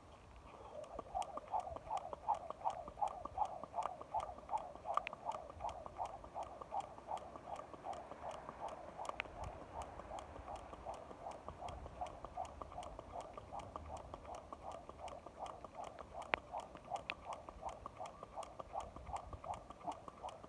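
Jump rope being skipped on pavement: a quick, steady rhythm of the rope swishing round and slapping the ground with each turn, starting about half a second in.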